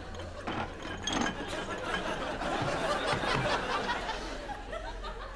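Studio audience laughing and chuckling, with a couple of short knocks in the first second or so.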